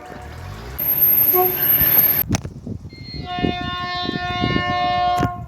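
Train rumbling past, then a train horn sounding steadily for about two seconds over the clatter of wheels, cut off abruptly near the end.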